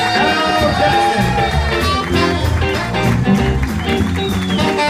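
A live band playing upbeat music, electric guitar to the fore over a steady beat, with no singing.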